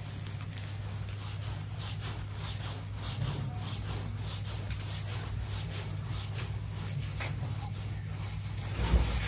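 Wooden rolling pin rolling back and forth over a thin sheet of roti dough on a flour-dusted board, a soft rubbing swish on each quick, repeated stroke. A low steady hum runs underneath, and a thump comes near the end.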